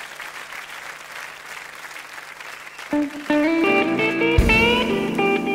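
Audience applause, then about three seconds in an electric guitar starts a slow blues intro with single notes and bent strings, a low bass note joining a moment later.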